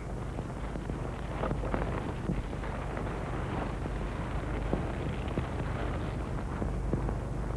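Steady hiss and low hum with faint scattered crackle: the background noise of an old film soundtrack, with no dialogue or music.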